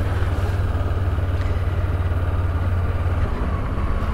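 Honda CB500F's parallel-twin engine running steadily at low speed as the motorcycle rolls along a city street, a constant low hum that eases slightly near the end.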